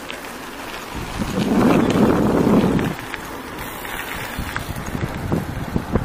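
Wind buffeting the microphone and the rattle and road noise of a bicycle rolling along an asphalt path. It swells louder for about a second and a half, a little after the start.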